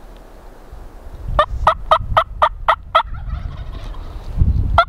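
Turkey yelping: a run of seven or eight short, evenly spaced yelps at about four a second, starting a little over a second in, then a second run beginning at the very end. A low rumble of wind or handling lies under it.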